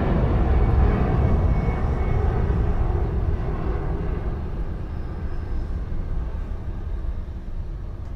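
Four jet engines of a Boeing 747 freighter running as it passes and moves away down the runway: a deep, rumbling engine noise that fades steadily.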